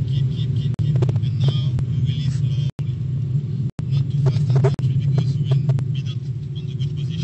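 Nissan GT-R's twin-turbo V6 heard from inside the cabin at track speed: a steady low engine drone with road noise. The audio cuts out briefly twice near the middle.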